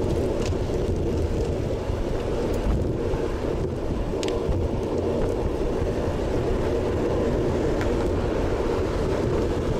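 Steady wind rush buffeting the microphone of a Sony FDR-X3000 action camera on a road bike riding at about 35 km/h, mixed with tyre and road noise.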